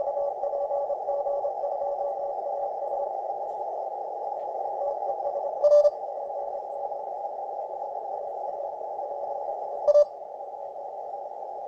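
FlexRadio FLEX-1500 shortwave receiver on the 20-metre CW band giving a steady hiss of band noise through a narrow CW filter, the urban interference picked up by a vertical antenna in a city centre. A faint Morse code signal beeps on and off as a tone for the first few seconds. Two short, loud cracks of noise come about six and ten seconds in.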